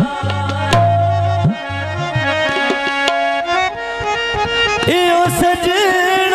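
Live Punjabi folk music between sung verses: a reed-keyboard melody of held, stepping notes with light drum strokes, and a long wavering note coming in about five seconds in.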